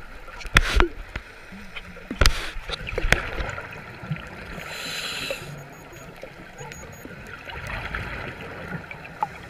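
Scuba diver breathing out through the regulator, the exhaust bubbles gurgling out once about five seconds in, over a steady underwater hiss. A few sharp knocks or clicks in the first three seconds are the loudest sounds.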